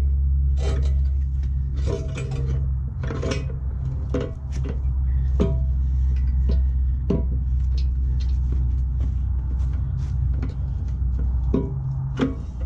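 Steel parts clanking and ringing against each other, with a dozen or so separate knocks, over a steady low hum.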